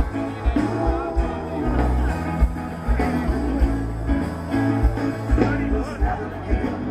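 Live rock band playing: a moving bass line and steady drum beat under electric guitar.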